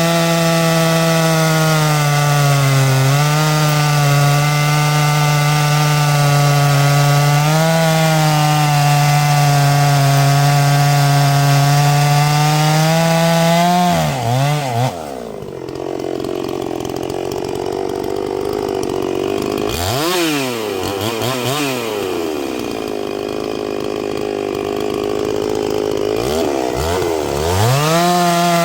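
Two-stroke chainsaw held at full throttle cutting through oak, its pitch sagging briefly twice under load. About 14 s in the throttle is let off to idle, blipped a couple of times, then opened up again near the end.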